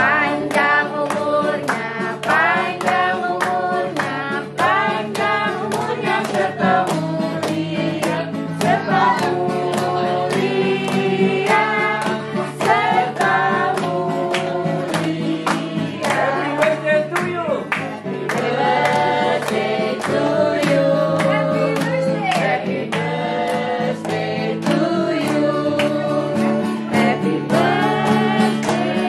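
A group of people singing a birthday song together in Indonesian, clapping along at about two claps a second, with an acoustic guitar accompanying.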